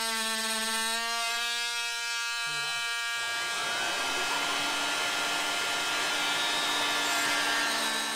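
Oscillating multi-tool running with a steady high buzz as its blade cuts into the plastic top of a garbage can. About three seconds in, a vacuum held at the cut starts up, adding a steady rushing noise under the buzz.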